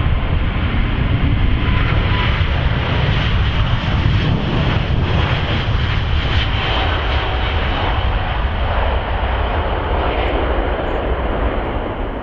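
Airliner engines running loud, a steady deep rumble with a hiss over it, beginning to ease off at the very end.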